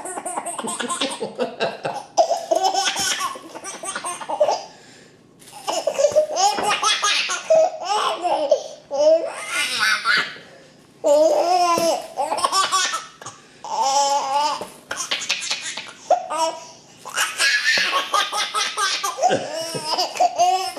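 A baby laughing in repeated bouts, high-pitched giggles and laughs broken by short pauses.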